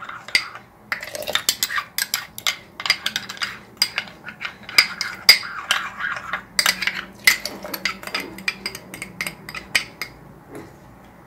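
Metal teaspoon clinking and scraping against the sides of a small ceramic ramekin while stirring instant yeast into water: rapid, irregular clicks that die away about ten seconds in.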